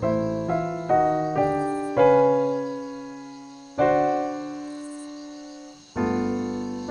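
Slow piano music: a few chords struck in quick succession, then long chords left to ring and fade, with fresh chords struck near four and six seconds in.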